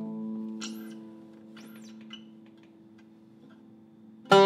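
Zeryab oud with a cedar soundboard: plucked notes ring on and slowly fade away. About four seconds in, loud, quick plucking with a plectrum (risha) starts up.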